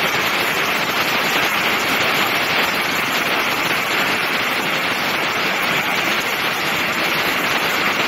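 Large waterfall pouring down close by: a loud, steady rush of falling water and spray that never lets up.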